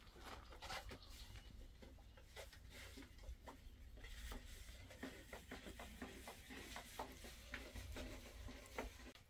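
Near silence: faint outdoor room tone with a steady low rumble and scattered faint ticks.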